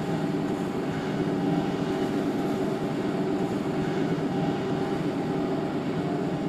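Steady vehicle running noise: an even rumble with several steady humming tones through it.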